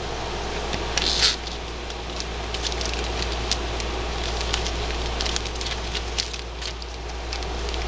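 Crinkling and rustling of a foil hockey card pack being handled and torn open, with many small scattered clicks and a louder crinkle about a second in, over a steady low hum.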